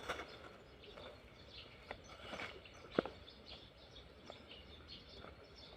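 Faint ambience with scattered short bird chirps and a few soft clicks, the sharpest about three seconds in.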